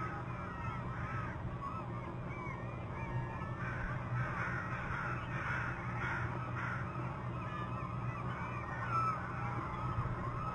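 Many wild birds calling over one another, densest about four to seven seconds in, over a steady low hum.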